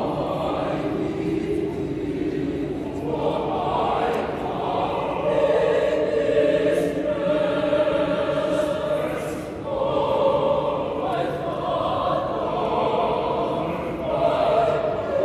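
A mixed choir of men and women singing a hymn in harmony, holding long chords between short breaks.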